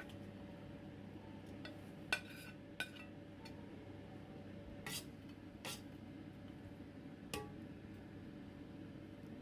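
Cookware and utensils clinking and knocking in a kitchen, about five separate metallic strikes, the loudest about two seconds in, over a steady low hum.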